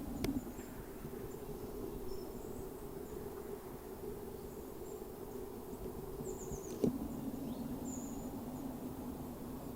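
Faint, high-pitched bird chirps scattered over a steady low hum, with a sharp click near the start and another about seven seconds in.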